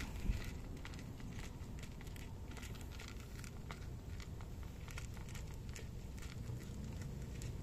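Several cats crunching dry kibble, with quick irregular clicks of chewing and pieces knocking in the bowl, over a steady low rumble.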